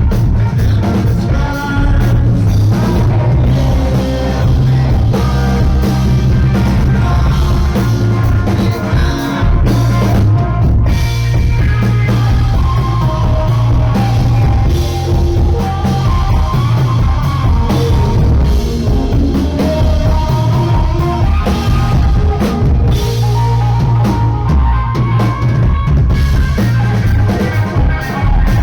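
Rock band playing live and loud: a driving drum kit, heavy bass and electric guitars in a continuous full-band passage.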